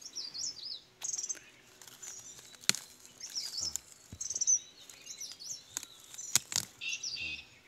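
Small birds chirping and trilling in quick, repeated phrases, with a few sharp cracks and some rustling as a hand works at a plant stalk in the undergrowth, the loudest crack about a third of the way in and two more close together near the end.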